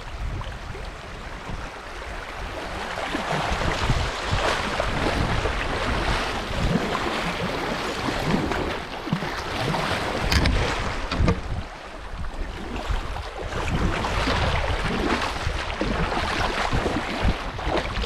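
Kayak paddled through shallow, fast-moving river current: water rushing past the hull and the paddle blades splashing in with each stroke, with wind buffeting the microphone.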